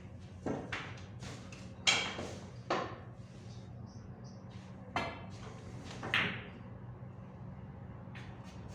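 Pool balls on a sinuca table clacking: a handful of sharp knocks of cue on ball and ball on ball or cushion over the first six seconds, the loudest about two seconds in, over a steady low hum.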